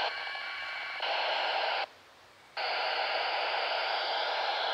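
Static hiss from a Kenwood TH-D74 handheld ham radio's speaker, tuned to the International Space Station's APRS digipeater on the 2-metre band. The hiss cuts out abruptly twice, each time for under a second.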